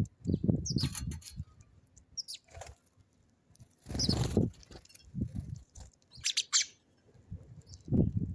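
House sparrows giving short high chirps, with the low flutter of their wings as they land and take off, loudest about a second in, near four seconds and near the end.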